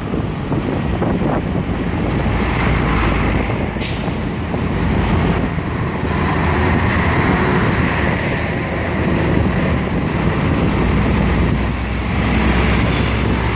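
Dense road traffic heard from close beside a heavy container truck: steady engine and tyre noise from the truck and passing motorcycles, with a short, sharp hiss about four seconds in.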